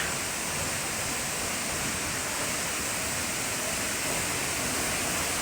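Waterfall: a steady, even rush of falling water, with no pauses or changes.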